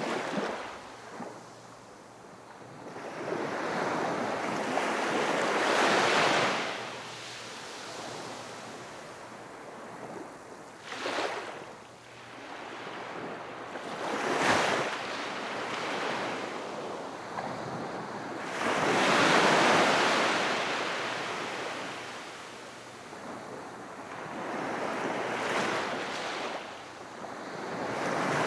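Gentle sea waves washing onto the shore, rising and falling, with a louder wash breaking every several seconds.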